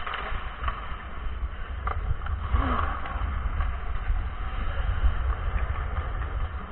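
Wind rumbling on a body-worn camera's microphone as the wearer skates fast, over the hiss of skate blades on ice, with a few faint clicks. The rumble drops away suddenly at the end.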